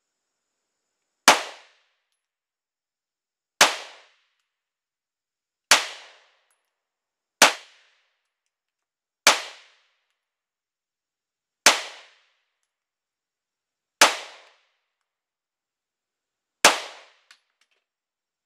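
Eight single shots from a Polymer 80 Glock 19-pattern 9mm pistol, fired slowly in aimed succession about two seconds apart, each a sharp report with a short ring-off.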